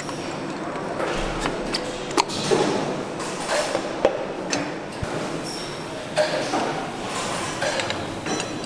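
Sharp metal clinks and knocks, with short scrapes, as pistons on their connecting rods are handled and fitted by hand into the cylinder bores of a Mercedes-AMG V8 engine block. The clearest clicks come about two, four and five seconds in, over the steady hum of a large assembly hall.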